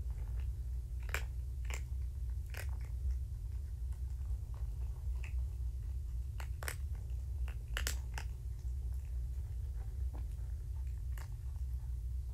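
A kitten grooming and nibbling: scattered soft clicks and small crunchy ticks at irregular intervals, over a steady low hum.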